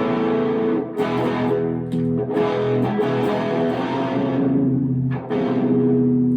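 Electric guitar played through a Joyo Dark Flame distortion pedal into a Harley Benton amp, with sustained distorted chords ringing and restruck a few times. The guitar is out of tune.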